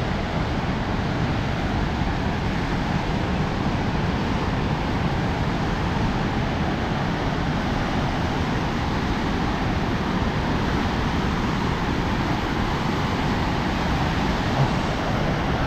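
Kootenai Falls rushing: a loud, steady roar of falling water.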